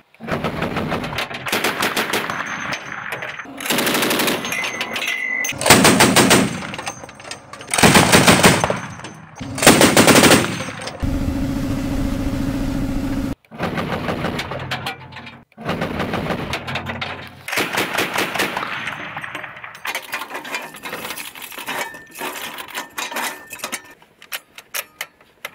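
NSV 12.7 mm heavy machine gun firing a series of short bursts of rapid shots, with gaps between them. A steady mechanical hum runs for about two seconds near the middle.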